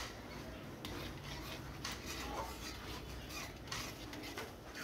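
Flat metal spatula stirring and scraping thick tomato-onion gravy around a metal pan, soft scrapes with a few light clicks against the pan, working in the added water so the lumps dissolve.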